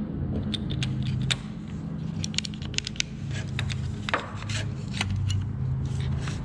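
Irregular clicks and light rattles of plastic and metal parts being handled on a partly disassembled Milwaukee M18 impact driver, over a steady low hum.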